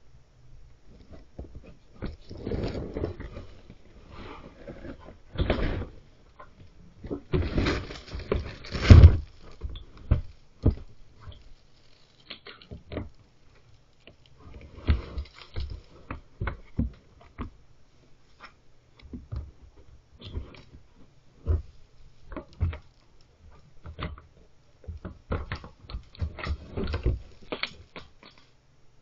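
A black bear knocking over and pulling at a plastic bin: bursts of scraping and clattering knocks of hard plastic, the loudest about nine seconds in, with more scattered bumps and scrapes later on.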